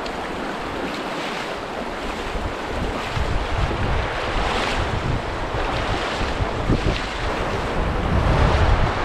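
Shallow river water rushing over rocks in a narrow canyon, a steady loud wash, with wind buffeting the microphone in low rumbles from about three seconds in.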